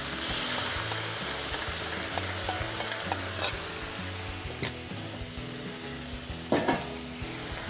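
Vegetables sizzling in a very hot wok as sauce is poured in, the sizzle loudest for about the first second, then a metal wok spatula scraping and stirring through the food with a few sharp scrapes.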